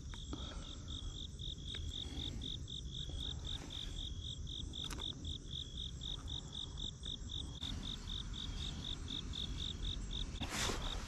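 An insect chirping in a steady, even rhythm of high pulses, about four a second, with a short burst of noise near the end.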